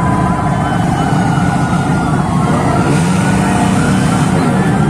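Several ambulance sirens sounding at once, a fast repeating yelp overlapping slower rising wails, over a steady low rumble.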